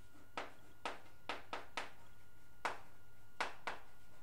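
Chalk tapping and clicking against a chalkboard while a word is written, about eight sharp, irregular taps.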